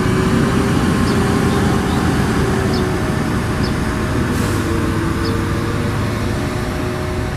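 Diesel engine of a Plasser & Theurer track maintenance machine running steadily as the machine moves slowly in reverse along the yard track.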